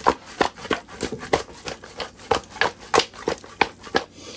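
Hands mixing and rubbing masala spice coating into raw fish pieces, a steady rhythm of about three short strokes a second.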